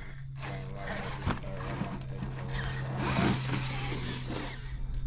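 Electric motor and geared drivetrain of a 1/10-scale RC rock crawler whirring as it eases down a rock ledge into a creek, over a steady low hum.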